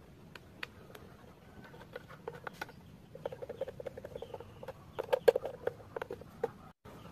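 Small clicks, taps and rubbing squeaks of hands handling wires, plastic connectors and the plastic hull of an RC boat, sparse at first and busier from about three seconds in, with the sharpest click a little past five seconds.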